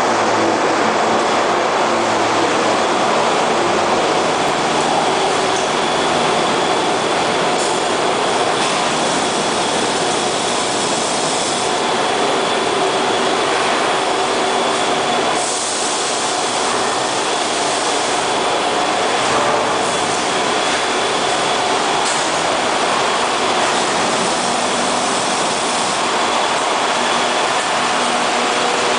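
Steady din of meatball production-line machinery: motor-driven stainless mesh conveyors and a spiral conveyor running continuously, with a few steady whining tones over the mechanical rumble.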